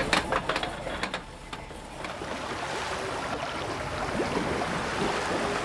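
A few sharp clicks or knocks, then a steady rushing of sea and wind aboard a large sailing ship.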